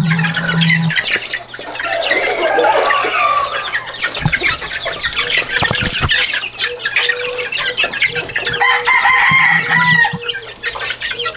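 A group of juvenile gamefowl chicks peeping and clucking in rapid, overlapping chirps.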